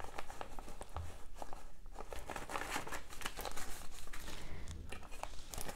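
US paper banknotes being counted by hand: a steady run of quick crinkles and flicks as bills are thumbed through one after another.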